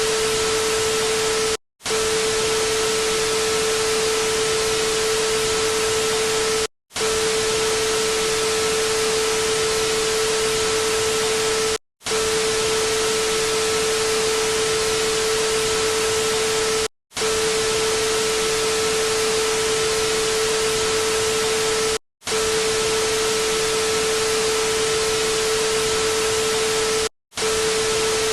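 Loud steady static hiss with a constant humming tone underneath, cutting out for a split second about every five seconds as a short clip loops.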